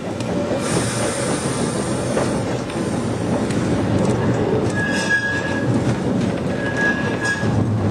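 Vintage tram running along the track with a steady rumble. Its wheels give two brief high squeals, about five and seven seconds in.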